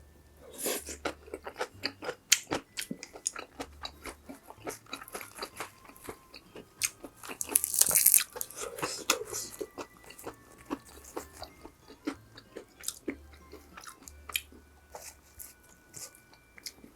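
Close-miked chewing and mouth sounds of someone eating cheese dakgalbi (spicy stir-fried chicken and cabbage): a dense run of wet clicks and smacks, with a louder crunchy stretch about eight seconds in.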